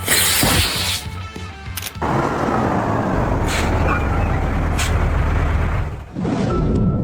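Dramatic background music with a heavy low rumble, opening on a loud hit, with a slow falling sweep from about two seconds in.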